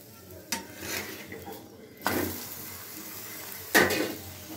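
Utensil knocking on an iron tawa as a paratha is turned over: three sharp clinks, about half a second in, two seconds in and the loudest near the end.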